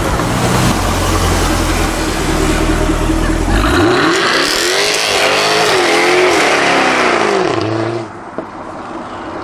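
Supercharged V8 of a Jaguar F-Type R running at a low, steady note, then revving up hard about four seconds in and falling back off after a few seconds. The level drops near the end, and there is one sharp crack.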